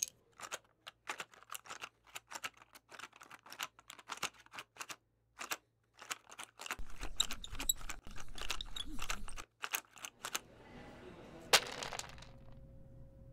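An irregular run of sharp clicks and taps, several a second, coming thicker in the middle over a low hum, with one louder snap near the end.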